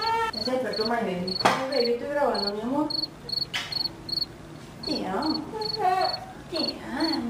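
Cricket chirping in a steady, even rhythm of about two to three short chirps a second. A high voice rises and falls under it in two stretches, at the start and again from about five seconds in.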